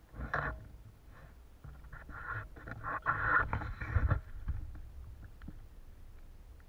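Small waves slapping and splashing against a plastic kayak's hull in uneven bursts, strongest from about two to four seconds in.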